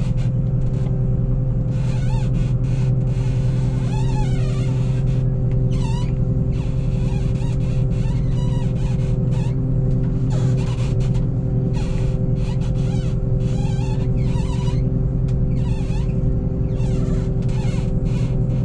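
New Holland TX62 combine harvester running steadily: a constant low hum with steady whining tones from its drives, and now and then a brief high wavering squeak.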